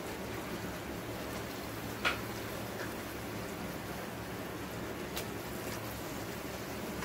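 Paratha deep-frying in a pan of hot oil: a steady sizzle. A sharp metal click about two seconds in and a lighter one near five seconds come from the metal slotted spatula in the pan.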